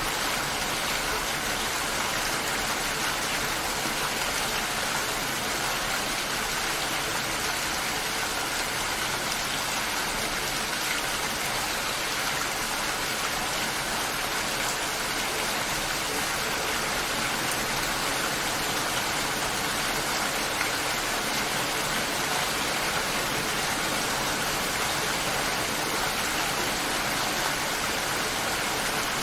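Steady, continuous rain, an even hiss of falling water without breaks.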